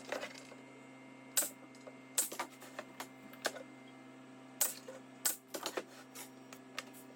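Irregular sharp clicks and knocks, about a dozen, some in quick pairs, from melamine cabinet parts being handled, fitted and fastened together.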